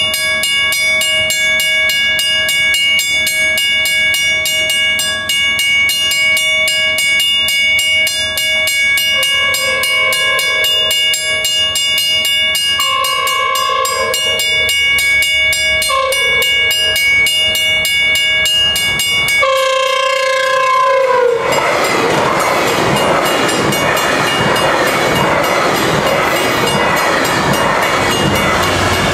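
Mechanical crossing bells ringing steadily while a GO Transit bilevel cab car's horn, a terrible-sounding horn, blows the crossing signal: two long blasts, a short one, then a loud final long blast that drops in pitch as the train reaches the crossing. The train then rumbles past over the rails, its wheels clicking on the joints.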